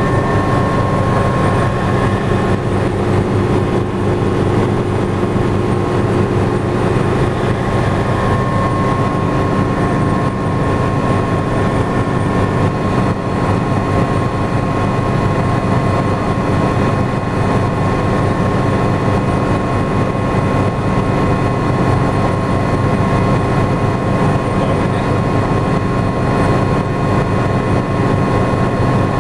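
Small helicopter's engine and rotor running steadily, heard from inside the cockpit during a descending approach: a continuous loud drone with a steady high whine over it.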